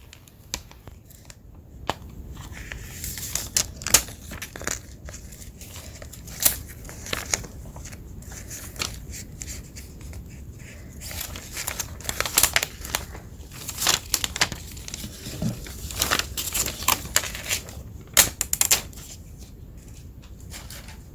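Thin plastic packaging being handled and peeled off the Echo Show 5 smart display, with irregular crinkling and crackling that thickens in the second half, picked up close with the volume raised.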